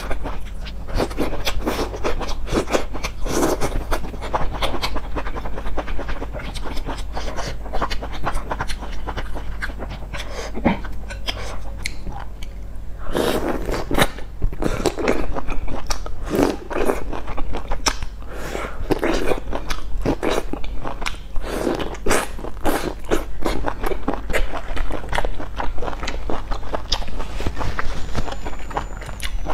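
Close-miked biting and chewing of hot-pot food, including corn on the cob, with many quick crackly bites and chews in uneven clusters. A steady low hum runs underneath.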